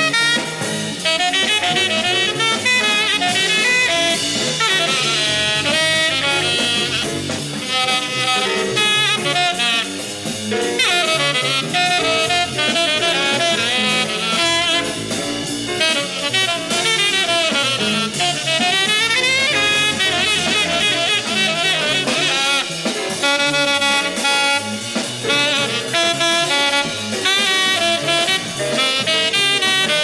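Bebop jazz septet of two tenor saxophones, two trumpets, piano, bass and drums, with a saxophone carrying the lead line over the rhythm section.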